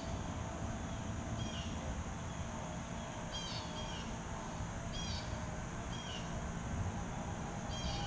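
A bird calling: short, high, falling chirps repeated every second or two over a steady low background rumble.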